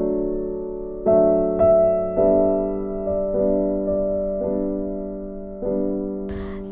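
Background music of slow keyboard chords, each struck and left to fade before the next one, about once a second.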